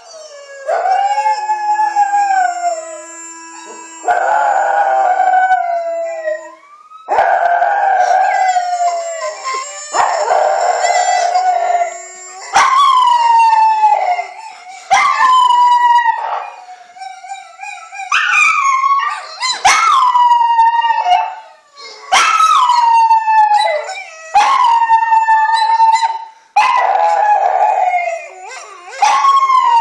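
A small pinscher howling: long wavering howls at first, then, from about halfway, a run of shorter howls that each start sharply and slide down in pitch, every second or two.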